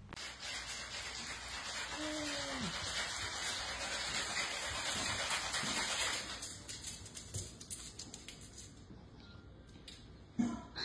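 Ice cubes rattling and clinking for about six seconds, the sound that brings the dog running. About two seconds in there is a short falling whine from the dog.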